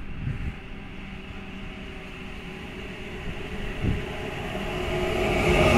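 Freight train hauled by two TRAXX electric locomotives (185 543 and 186 137) approaching, its rumble growing steadily louder, with a steady hum coming in toward the end and a brief knock about four seconds in.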